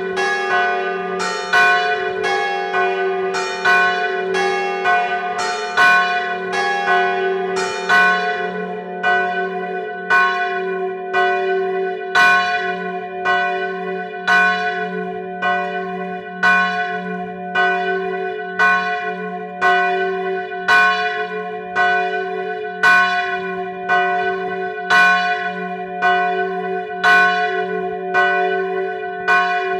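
Church bells ringing a death knell: the large bell swinging in full peal, its deep hum held throughout, with bell strokes about once a second. The strokes come closer together during the first several seconds.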